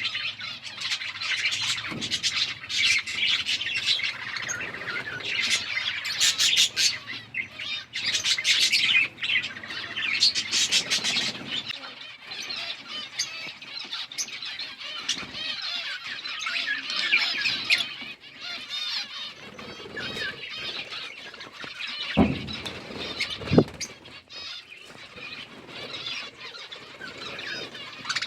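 A flock of budgies chirping and chattering continuously, busiest in the first half, with two brief low thumps a little past two-thirds of the way through.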